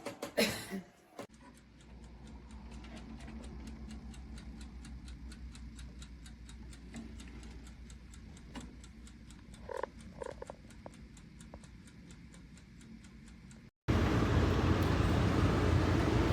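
Steady, rapid mechanical ticking of a clockwork mechanism over a low hum, with a couple of short squeaky sounds about ten seconds in. Near the end it cuts off suddenly and gives way to a much louder, steady rumbling noise.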